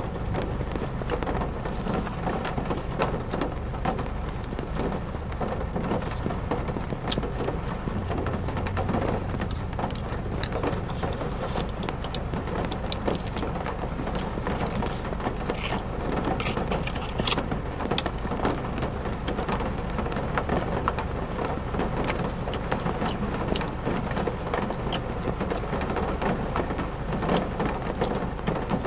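Steady rain on a car's roof and windows, heard from inside the cabin, with scattered small clicks and crinkles from food packaging and eating.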